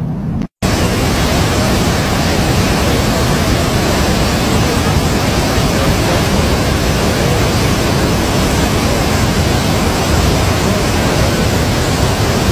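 Loud, steady rushing noise with no rhythm or distinct events, cutting in after a brief dropout about half a second in.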